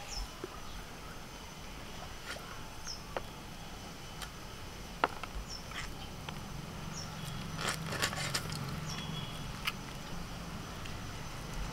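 Faint scattered clicks and scrapes of stinging catfish being cut and cleaned on a bonti, the fixed curved blade, with a few sharper knocks about halfway through.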